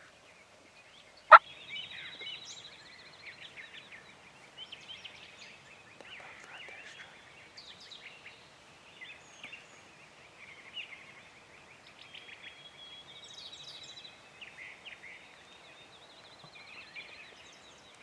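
Eastern wild turkey gobbling in the field, among other rapid rattling bird calls. A single sharp crack sounds about a second in, louder than anything else.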